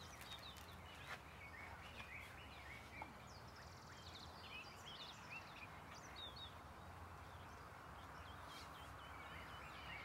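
Faint chorus of wild birds calling, many short chirps and whistles overlapping, over a steady low hum.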